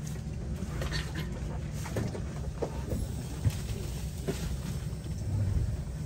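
Low, steady rumble of a tour bus engine heard from inside the cabin, with scattered small knocks and rattles.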